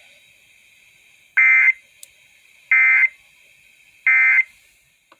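Three short bursts of Emergency Alert System digital data tones, the end-of-message code that closes an EAS test, each about a third of a second long and about 1.3 seconds apart, over faint radio hiss.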